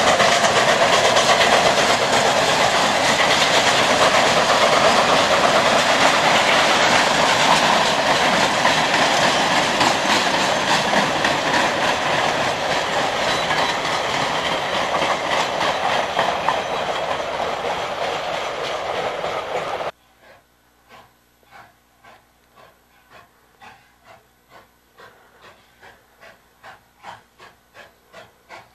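Freight cars of a steam-hauled train rolling past on the rails: a dense, steady clatter of wheels over rail joints that fades slowly, then cuts off about two-thirds of the way through. After that, a faint rhythmic beat about twice a second, growing slightly louder.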